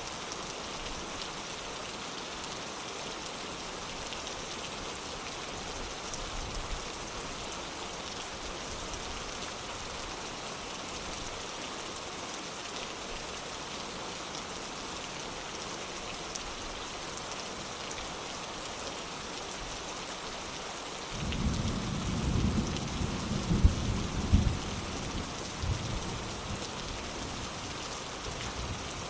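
Steady rain falling, a constant hiss. About two-thirds of the way through, a roll of thunder breaks in, rumbling low with a few sharper cracks before it dies away near the end.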